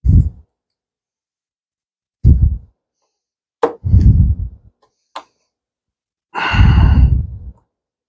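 A man breathing out heavily in four sighing exhales, the longest near the end, while he works hex screws into a model jet's wing. Two short clicks fall between the breaths.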